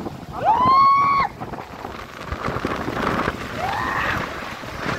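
Steady rushing roar of water pouring through a dam's open spillway gates. Near the start a loud high call rises in pitch and holds for about a second, and a shorter rising call comes later.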